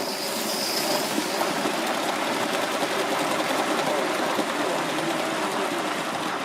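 Gauge 1 model train running on its track, a steady mechanical whirr and rattle of wheels and motion that builds over the first couple of seconds, then cuts off abruptly at the end.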